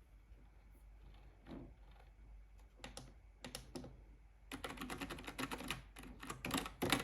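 Typing on a SteelSeries Apex 3 TKL keyboard with its whisper-quiet membrane switches: a few scattered keypresses, then a fast run of keystrokes from about halfway through, loudest near the end.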